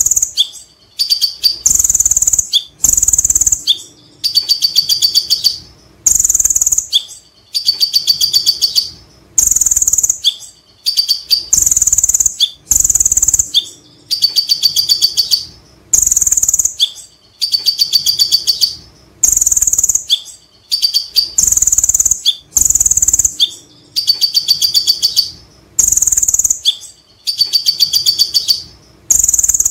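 A male Van Hasselt's sunbird (kolibri ninja) singing loudly. High, rapid trilled phrases come over and over, about one a second, with brief pauses between.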